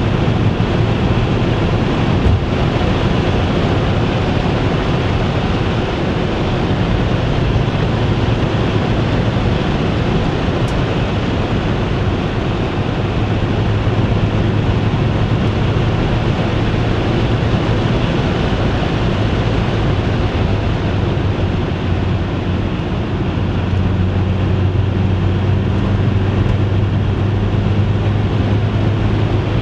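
Porsche 944's four-cylinder engine running steadily while the car drives, with a constant low engine note under road and wind noise.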